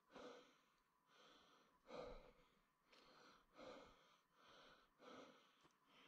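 Faint, rhythmic breathing of a person walking, soft breaths coming a little more than once a second and alternating stronger and weaker.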